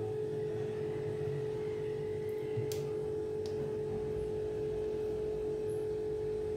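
A steady hum held at one pitch, over a faint low rumble, with a light click about three seconds in.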